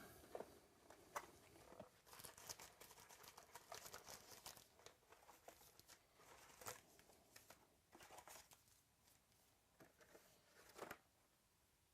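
Faint crinkling and tearing of trading card pack wrappers being opened, with irregular light crackles and clicks as the packs and cards are handled.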